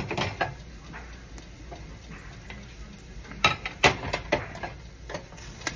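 Kitchen clatter: scattered sharp clicks and taps of utensils and cookware, with a quick cluster of louder knocks about three and a half seconds in, over a faint steady background.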